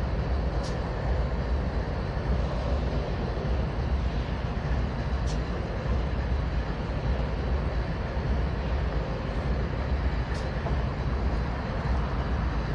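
A steady low rumble and hiss from distant diesel locomotives and track-maintenance machinery working in a rail yard, with a few faint, short high ticks.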